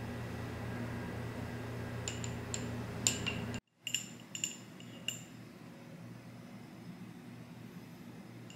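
Light clinks of tableware, a few sharp taps in quick succession, over a steady low hum. A little under halfway through the hum cuts out abruptly and a few more clinks follow over a quieter background.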